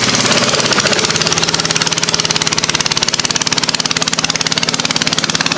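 Car engine idling close by with a rapid, even exhaust pulse and a steady drone.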